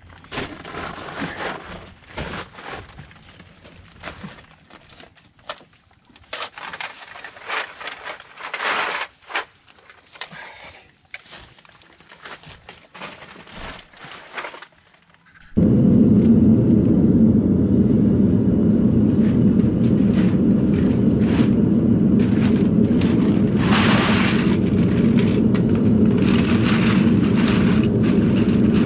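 Plastic bags of aluminium cans rustling and crackling in irregular bursts. About halfway a loud, steady roar cuts in suddenly and runs on, with cans clattering over it.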